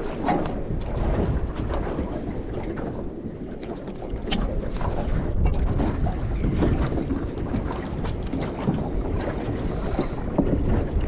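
Wind rumbling on the microphone aboard a small boat on choppy sea, with scattered short clicks and knocks.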